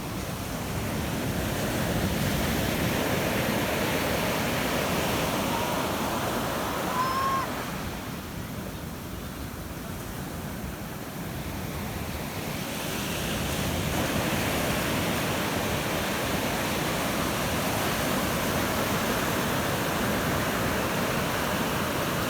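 Ocean surf breaking and washing up the beach, a continuous rushing hiss. It swells loud about two seconds in, eases off for a few seconds in the middle, then builds again as the next waves come in.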